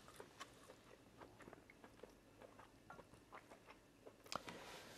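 Faint chewing and scattered soft, wet mouth clicks from people eating fufu and soup, with a slightly louder click near the end.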